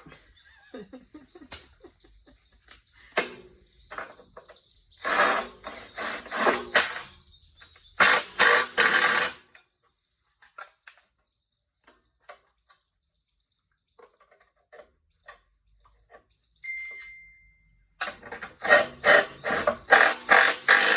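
Wrench work on bolts: several bursts of rapid ratchet-like clicking, about five and eight seconds in and again near the end, with single tool clinks in the quiet spells between.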